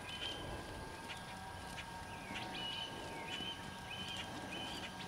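A bird repeating a short high chirp every second or so, over faint soft hoofbeats of a horse trotting on arena sand.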